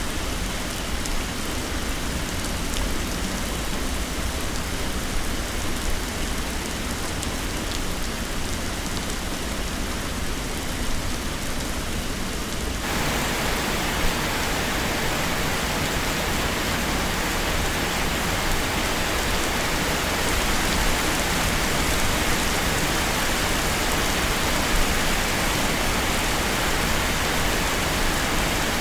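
Heavy rain pouring steadily as a dense hiss. About thirteen seconds in it changes abruptly to a louder, brighter downpour.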